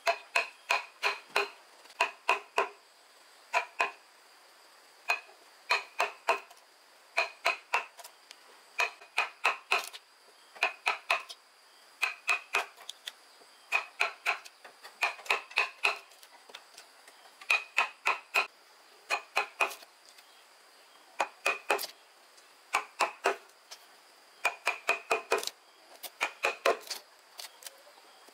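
Hammering: sharp, ringing strikes in quick runs of two to five, about four a second, with short pauses between the runs.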